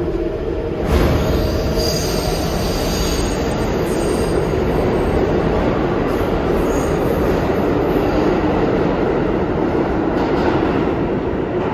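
New York City subway train running through an underground station with a steady rumble of wheels on rail, and high wheel squeal in the first few seconds.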